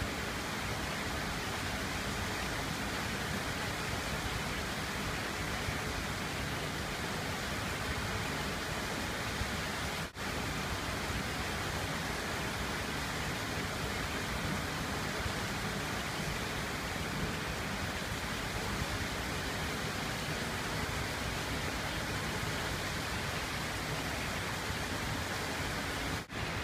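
Steady rush of water pouring over a flood-control dam's weir, an even roar with no change in pitch, broken by brief dropouts about ten seconds in and just before the end.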